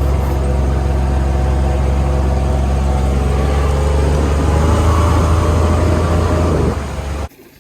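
Vehicle engine running loudly while being driven, with a steady low drone that builds a little past halfway, then eases off and cuts off abruptly near the end.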